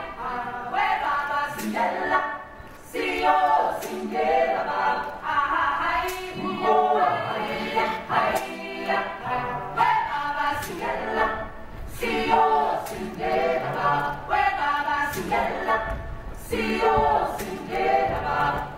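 Stage-musical ensemble chorus singing a chant-like choral number in phrases, with sharp percussive hits recurring every second or two.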